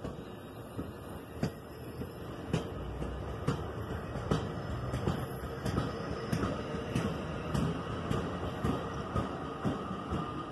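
NJ Transit train of bi-level coaches rolling past, its wheels clacking over rail joints and switches in an uneven run of sharp clicks, several a second, over a steady rumble.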